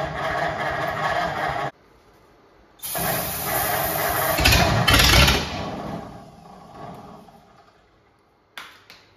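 1950 Ford F1's flathead V8 being cranked on the starter. It stops abruptly, then is cranked again a second later, loudest for a moment before fading away as the engine fails to keep running. A faint click comes near the end.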